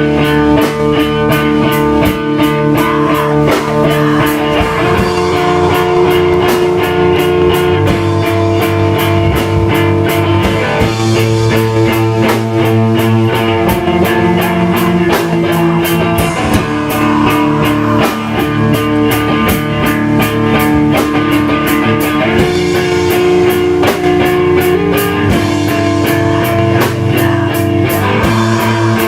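Post-hardcore band playing live: distorted electric guitars and bass over a steady drum-kit beat.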